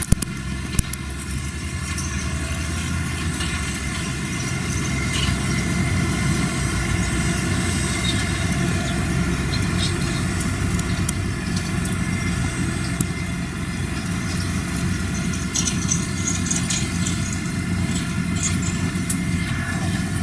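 Claas tractor engine running steadily as it pulls a Claas Liner 3600 four-rotor rake through cut grass, with a few light clicks scattered through the steady engine sound.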